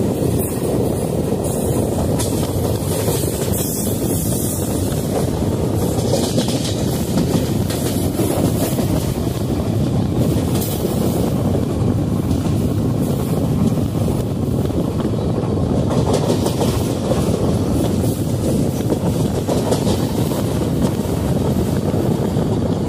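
Passenger train running along the line, heard from the coach's open doorway: a steady noise of wheels on the rails, with no speech.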